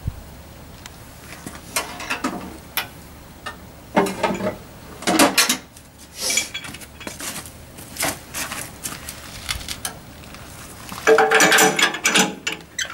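Irregular metal clanks, clicks and rattles as a Ransomes MG6 crawler's engine controls are set and a starting handle is fitted into the front of the engine, the loudest rattling near the end; the engine is not running.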